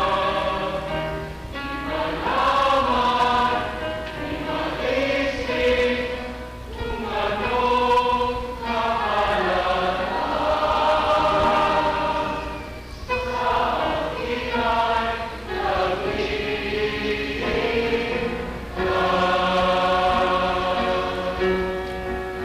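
A choir singing a Tagalog ballad in harmony, the voices swelling and easing in phrases a few seconds long with brief breaks between lines.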